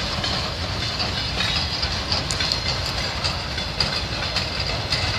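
Freight train of loaded flatcars rolling past, a steady rumble of steel wheels with scattered clicks and clatter over the rail joints.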